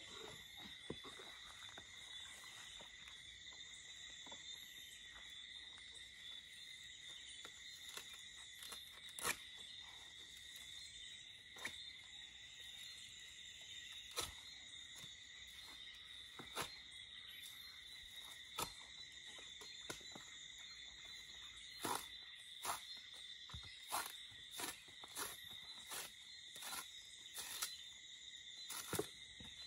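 Insects chirring steadily at a high pitch, over scattered sharp snaps and crackles of dry coconut spathe being split and torn apart by hand; the snaps come more often in the last several seconds.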